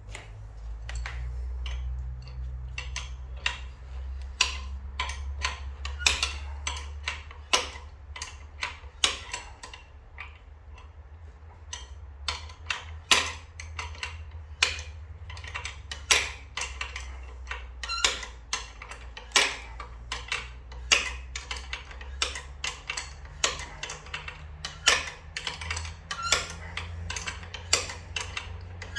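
Coil spring compressor being tightened on a car strut's coil spring with a ratchet wrench: sharp metallic clicks, roughly one a second and sometimes in pairs, over a low steady hum.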